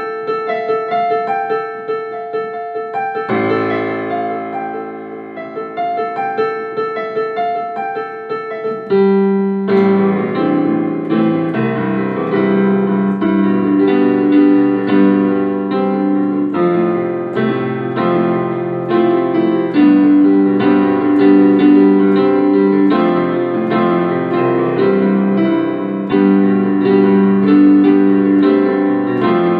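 Background piano music, a gentle melody that grows fuller and louder about nine seconds in.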